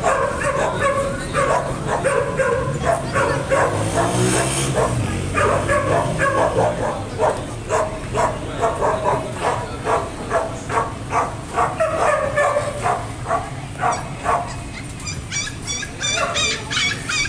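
Dogs barking aggressively in quick repeated barks, about two to three a second. Near the end, higher-pitched yips join in.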